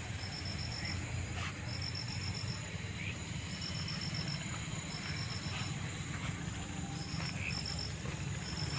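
Night insects chirping, in short trills of about six or seven quick pulses that repeat every second or so, over a steady low rumble.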